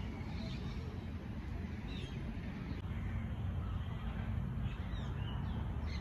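Birds calling in the trees, a few short chirps scattered through, over a steady low rumble.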